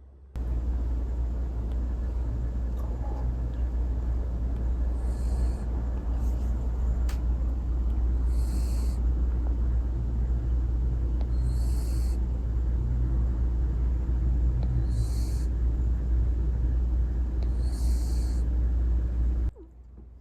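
A sleeping cat snoring: a short raspy breath about every three seconds over a steady low rumble, starting and cutting off abruptly.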